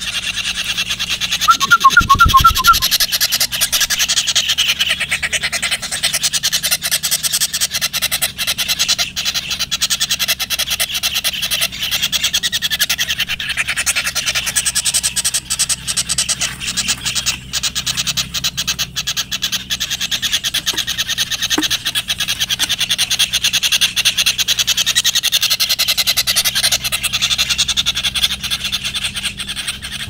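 A continuous dense chorus of rapid rasping pulses from calling animals. About two seconds in, a short run of about seven quick pips comes over a low thump, the loudest moment.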